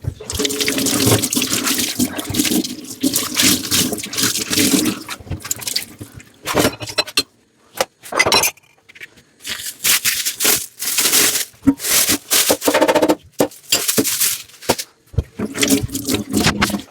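Dishes being washed at a kitchen sink: tap water splashing in irregular spurts, with dishes scraping and rattling as they are scrubbed and rinsed. There are a couple of brief pauses, one about halfway through.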